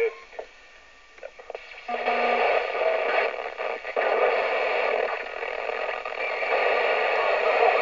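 Mobile CB/freeband radio receiver's speaker giving out even static hiss as the frequency is tuned off the channel, with a few clicks in the first two seconds; the static comes up loud about two seconds in and holds steady.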